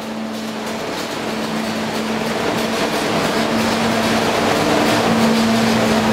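SNCF TGV high-speed trainset moving past along a station platform: rail and running noise with a steady electric hum, growing louder throughout.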